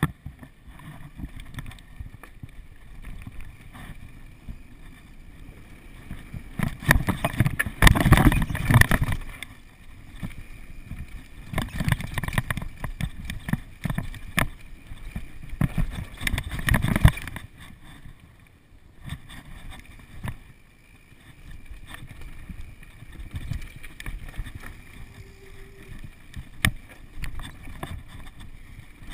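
Wind buffeting the camera microphone and the rattle of a downhill mountain bike running fast over a rough dirt trail, loudest in two rough stretches about a quarter and half of the way through.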